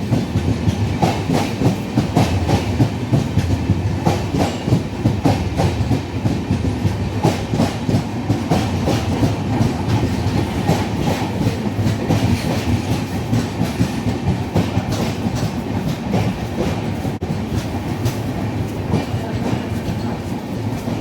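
Passenger train coaches rolling past, wheels clattering rapidly over rail joints over a continuous rumble, easing off slightly near the end.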